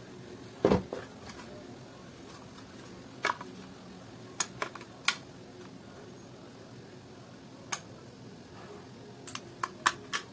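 White plastic housing of a Kenwood hand mixer being handled and lifted apart: scattered sharp clicks and knocks, the loudest about a second in and a quick run of them near the end, over a steady low hum.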